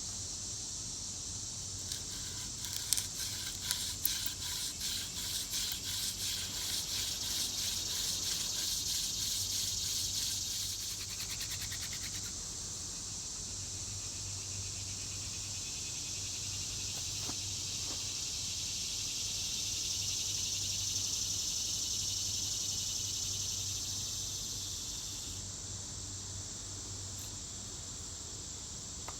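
Hand-drill burn-in: a horseweed spindle twirled between the palms, drilling into a tulip poplar fireboard, giving a rhythmic rubbing about twice a second for roughly ten seconds before stopping. Insects keep up a steady high buzzing, which carries on alone after the drilling stops.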